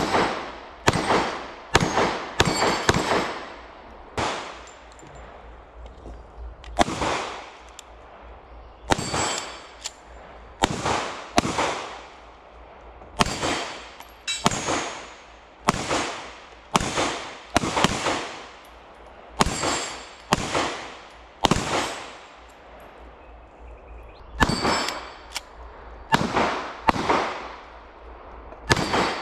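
Pistol shots fired one at a time, about a second apart, in strings with short pauses: first from a Glock 19, then from a CZ 75 BD. Each shot has an echo tail off the hillside, and after some shots there is a faint ring, likely from a hit on a steel plate target.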